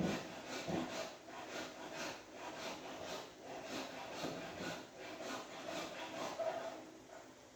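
Plastic joints of a Yolopark Rhinox action figure clicking and rubbing as its limbs are moved into a pose, a quick run of short clicks and scrapes, about three a second, with the odd squeak.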